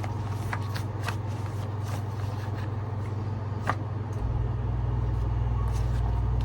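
Tarot cards being handled and drawn from a deck, with scattered light snaps and taps. A steady low hum runs underneath and gets louder about four seconds in.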